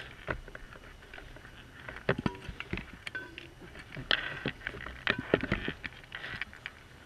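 Underwater diving noise picked up by a GoPro in its housing on a diver's scooter: irregular clicks and knocks with a few short hissing, bubbly rushes, strongest about two, four and five seconds in, over a faint low rumble.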